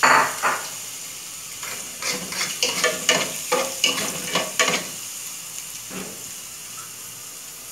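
Minced garlic sizzling in hot olive oil in a metal pot, a steady frying hiss. From about two to five seconds in, a spoon stirring it scrapes and clinks against the pot.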